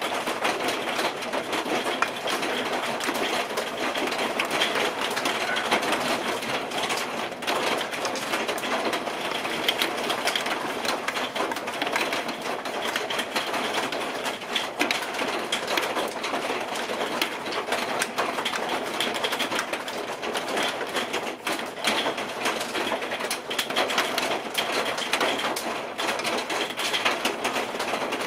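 Wood screws being backed out of a metal lathe faceplate with a hand screwdriver: a run of small creaks and clicks over a steady rushing noise.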